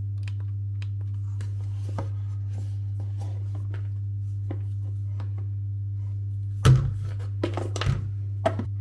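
Hands handling the hair dryer's cardboard box and packing: scattered light clicks and taps, then two louder knocks about seven and eight seconds in, over a steady low hum.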